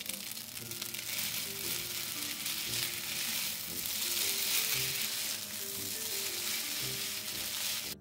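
Spaghetti and meat sauce sizzling in a frying pan as they are lifted and tossed together.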